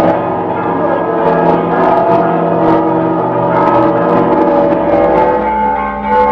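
Church bells ringing: several bells struck over and over, their tones overlapping and ringing on. About five and a half seconds in, the mix of pitches changes.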